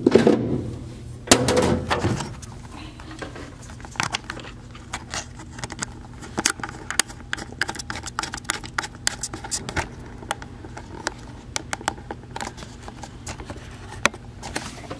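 Loose coins clinking and rattling as they are handled into a pouch, in irregular bursts of sharp clicks, heavier in the first two seconds, over a steady low hum.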